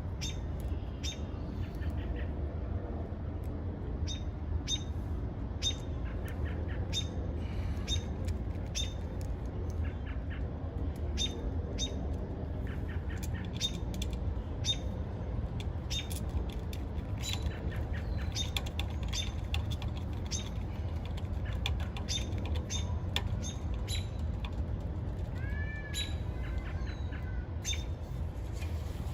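Small birds chirping repeatedly in short, sharp, irregular notes, with a few curved calls near the end, over a steady low rumble.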